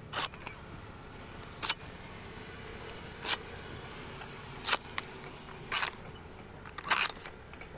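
Hooked sickle slicing into the green, fibrous stalk bases of a palmyra palm: six short, crisp cutting strokes, about one to one and a half seconds apart.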